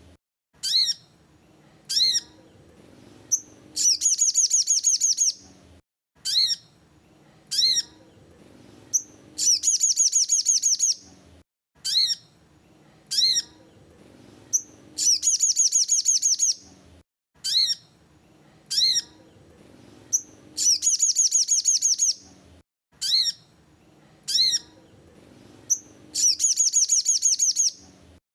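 Sogon bird song: a fast, high trill lasting about a second and a half, followed by three or four short, separate down-slurred notes. The phrase repeats almost identically about every five and a half seconds, five times.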